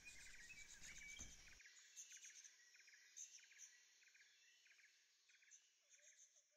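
Near silence with faint, high chirps repeating a little under twice a second, fading out.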